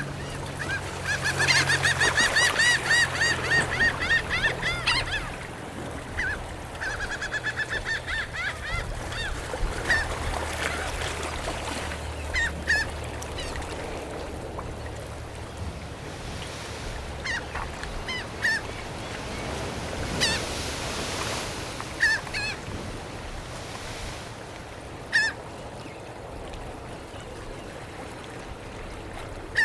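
Gulls calling at the shore. A long, fast series of repeated calls runs through the first few seconds, a shorter series follows, and then single calls come at scattered intervals, over a steady wash of water.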